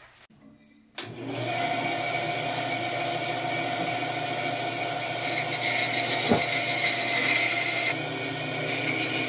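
Band saw running and cutting through a wooden fish decoy blank, starting abruptly about a second in with a steady blade-and-motor sound and one sharp click about six seconds in.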